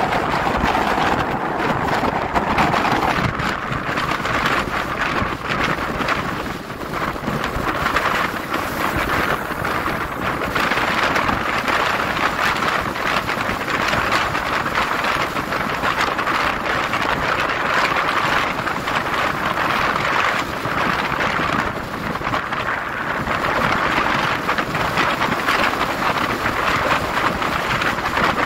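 Steady rushing wind noise on the microphone of a camera moving along a road, mixed with the noise of the vehicle carrying it.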